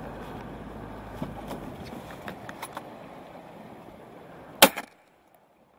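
A single loud shotgun shot fired at seabirds about four and a half seconds in, over a low steady rumble.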